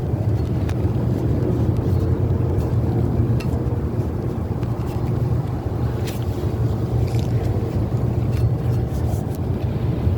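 Steady low rumble of background noise, with a few faint short clicks of small parts being handled.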